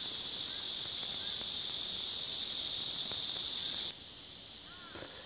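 Dense, steady high-pitched buzzing of summer insects, which drops off abruptly about four seconds in and carries on fainter.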